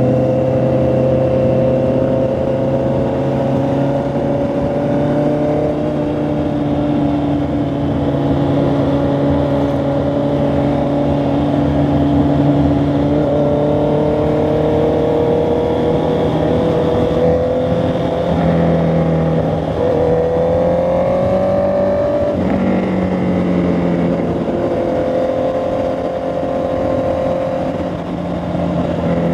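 Honda CB650R's inline-four engine and exhaust running at a steady cruise, the engine note dipping and climbing in pitch a few times as the throttle is eased and rolled back on.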